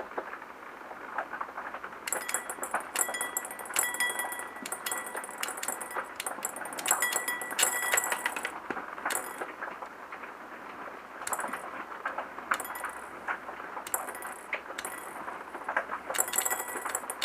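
Airsoft BBs being thumbed out of a freshly cleaned MP9 magazine, clicking and clinking out in quick irregular runs. The clicks start about two seconds in and pause briefly near the middle. This is the feed test: the magazine emptying without a jam.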